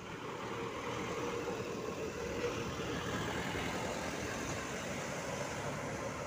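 Engine of a medium-size bus running steadily as the bus passes close by on a rough road.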